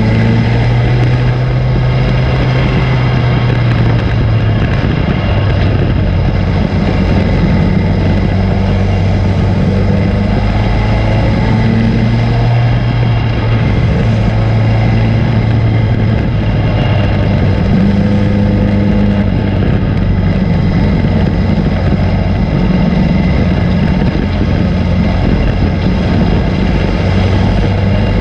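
Race car engine running hard at racing speed, heard from a camera mounted on the car, its pitch shifting up and down a little every few seconds as the throttle is worked, over a constant rush of wind and track noise.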